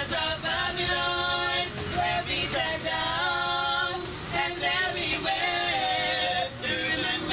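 Women's voices singing a cappella in held, gliding notes, with the steady low rumble of the moving train underneath.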